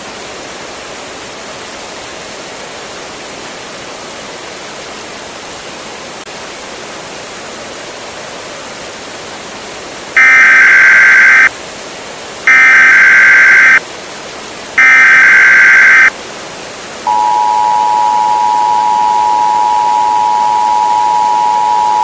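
A steady hiss, then about ten seconds in three short identical bursts of Emergency Alert System SAME header data tones, evenly spaced. About seventeen seconds in, the steady two-tone EAS attention signal starts and keeps sounding: the signal that an emergency alert message follows.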